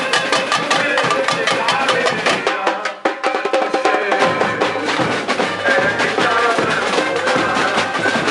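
Samba music with dense, fast drumming; the music drops out briefly about three seconds in, then comes back with a bass line under the drums.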